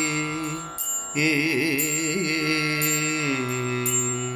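A male Odhuvar singing a wordless Carnatic-style passage in raga Neelambari over a steady drone: held notes, a brief break about a second in, then ornamented wavering glides and a step down to a lower held note about three seconds in.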